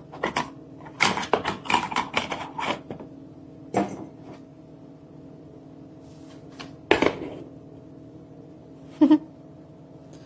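Clicks, knocks and clatter of objects being handled and set down, a quick run of them early and single knocks later, over a steady electrical hum.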